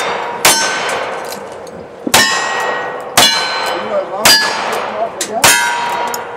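Single-action revolver fired five times, about a second apart, each shot followed by the ringing clang of a steel plate target being hit.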